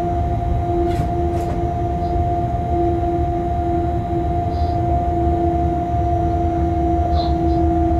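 Freight train cab sound while running: a steady low rumble with a constant two-tone electrical hum, two short clicks about a second in, and a few faint high chirps.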